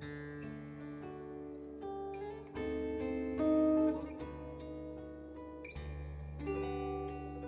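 Acoustic guitar playing an instrumental solo break, picked melody notes and chords over a bass line, with a louder passage a little past the middle.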